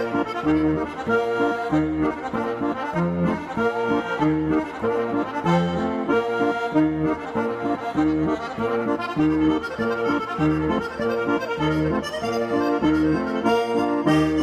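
Traditional folk music on accordion, with a steady bass-and-chord beat.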